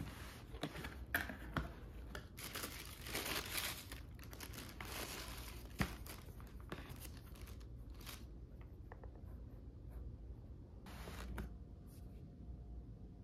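Tissue paper rustling and crinkling as a cardboard shoebox is opened and sneakers are unwrapped, heaviest in the first five seconds with another brief rustle near the end. A few sharp knocks come from the box being handled.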